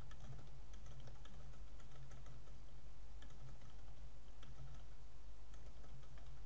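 Typing on a computer keyboard: a run of light, irregular key clicks over a steady low hum.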